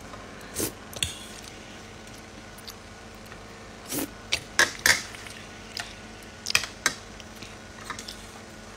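Cutlery clicking and clinking against a dish as a small child eats spaghetti. The short knocks are irregular, with a quick run of several about four to five seconds in and a few more a couple of seconds later.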